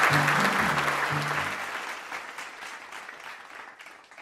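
Audience applauding and fading away, with a few low held notes of closing music under it for the first second and a half.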